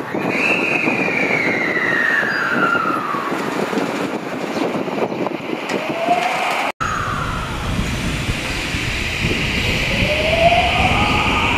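JR West 223 series electric train pulling out of a station, its VVVF inverter and traction motors whining in gliding pitches that rise as it gathers speed. The sound cuts out for an instant about seven seconds in.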